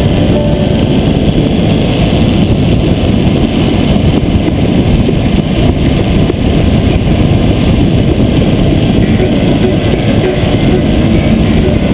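Steady, loud rush of wind and road noise on a camera mounted outside a moving vehicle driving at road speed, a dense low rumble with no clear engine note.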